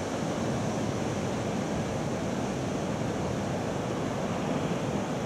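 Steady, even rushing of moving river water, with no distinct splashes or other events.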